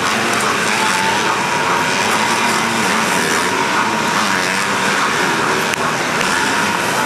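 A pack of motocross bikes racing, many engines revving at once and overlapping in a steady, loud din.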